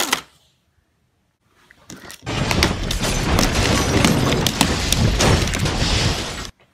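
Loud, dense clattering and rattling of plastic toy trains and track pieces handled right against the microphone. It starts about two seconds in, after a near-silent gap, and stops abruptly just before the end.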